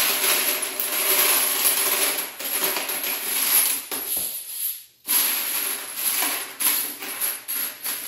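9mm brass cartridge cases pouring from a mesh basket onto a plastic food dehydrator tray, a dense metallic jingling that thins out about four seconds in. After a short pause, the cases clink and rattle as a hand spreads them around the tray.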